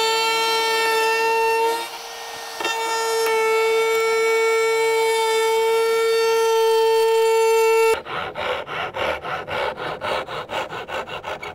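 Palm router with a flush trim bit running at a steady high whine as it trims a solid cherry lip flush with bent cherry plywood, dipping briefly about two seconds in. About eight seconds in the router stops and a hand saw takes over, cutting wood in quick back-and-forth strokes, about five a second.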